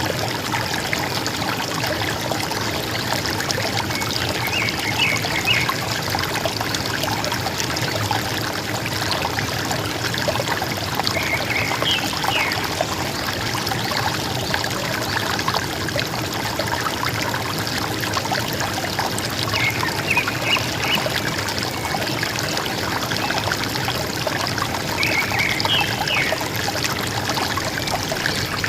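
River water running and gurgling steadily, with a bird giving four short bursts of chirps several seconds apart.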